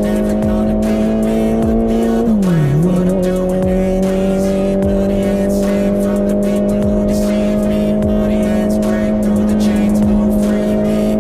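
Honda CBR650R's inline-four engine running at steady high revs through an IXIL full-system exhaust with the dB-killer removed. About two and a half seconds in, the revs dip sharply and come straight back up to the same steady pitch.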